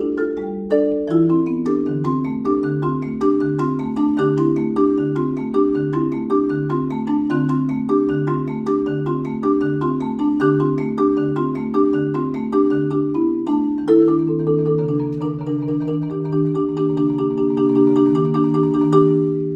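Solo marimba struck with mallets, playing a steady repeating pattern of notes over a pulsing low bass note. About fourteen seconds in, it changes to held chords sustained by rolls.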